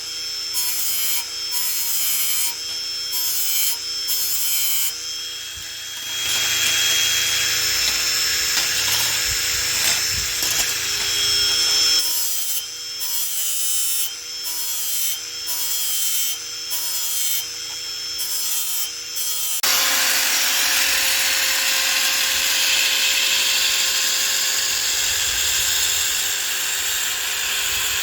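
Angle grinder with a sanding disc running against the steel blades of power rotary scissors, a steady whine with grinding hiss, in several cut-together stretches that change abruptly about 6, 12 and 20 seconds in.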